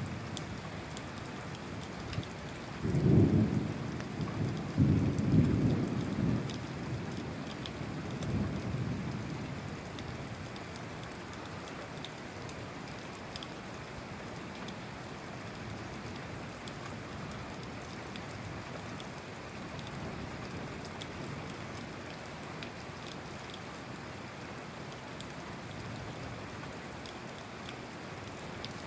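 Steady rain falling, with rolls of thunder rumbling low about three and five seconds in and a weaker roll a few seconds later, then only the rain.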